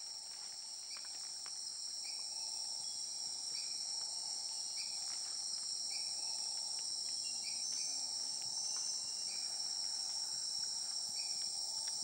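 Rainforest insect chorus: a steady, high, continuous shrill, with short chirps repeating about once a second.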